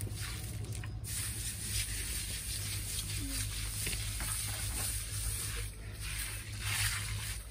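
Hand brush scrubbing wet grout slurry across newly set brass stumbling stones and the surrounding paving stones, a steady wet rustling scrub.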